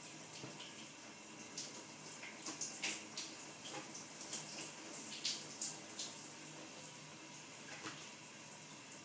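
Pages of a picture book being turned and handled: a scatter of short, faint papery rustles and flips, busiest in the middle, over a steady low hiss.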